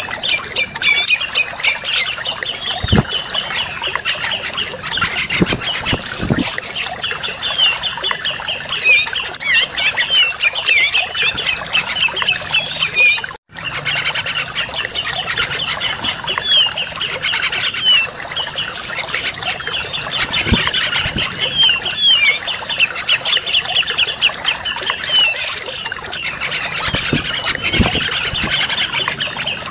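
Bird-lure recording of cucak jenggot (grey-cheeked bulbul) calls: dense, rapid chattering and chirping without a break. The sound drops out completely for a moment about halfway through.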